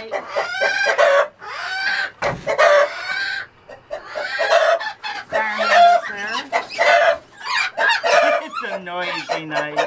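A flock of chickens squawking loudly in alarm as they are chased and caught, with one call after another and hardly a pause. A lower drawn-out call falls in pitch near the end.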